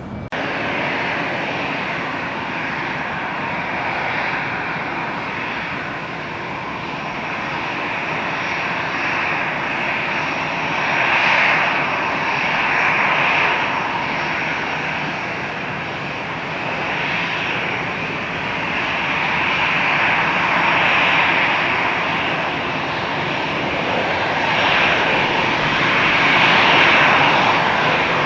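Passenger jet's engines running, a loud, continuous rushing noise that swells and eases several times.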